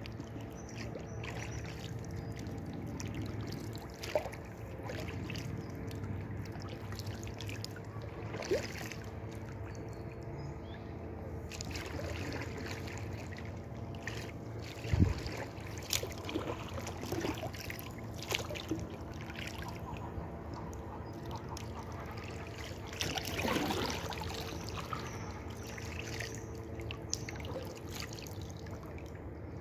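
Inflatable kayak moving slowly on calm water: small trickles and drips of water with light knocks and clicks, over a faint steady hum. A sharper knock comes about halfway through, and a brief rustle follows a few seconds later.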